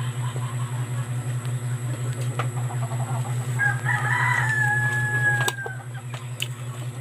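A rooster crowing once, about three and a half seconds in: one long call that holds its pitch and sags slightly at the end. A steady low hum runs underneath.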